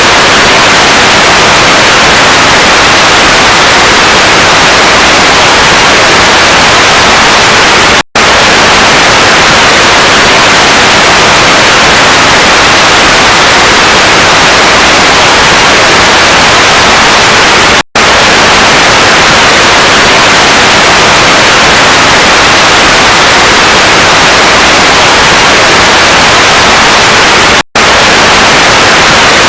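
Loud, continuous static hiss, an even white-noise-like rush strongest in the upper-middle range. It cuts out for an instant three times, about every ten seconds.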